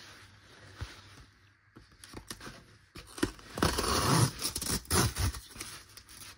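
The tear strip of a cardboard mailer envelope being ripped open along its top edge: quiet handling of the card at first, then rough tearing from about three seconds in.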